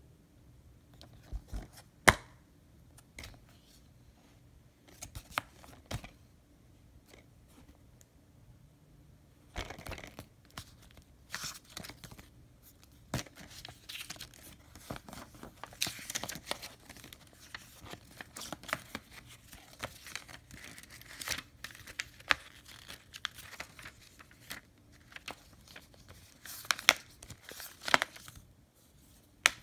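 Handling a plastic DVD case and its paper inserts: a few sharp plastic clicks and knocks, the loudest about two seconds in, then from about ten seconds in near-continuous rustling and crinkling of paper inserts being pulled out and leafed through, with sharp clicks near the end.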